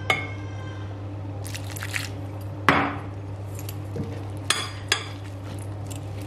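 A spatula scraping and knocking against a glass mixing bowl as gram flour (besan) and water are stirred into batter. There are a handful of separate clinks and scrapes over a steady low hum.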